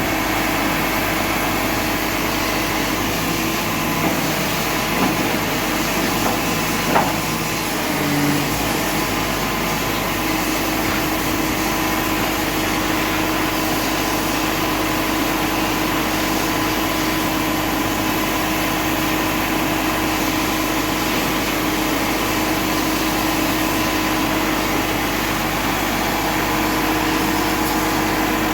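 Truck-mounted crane's engine running steadily with the power take-off engaged, a constant even hum. A brief sharp knock about seven seconds in.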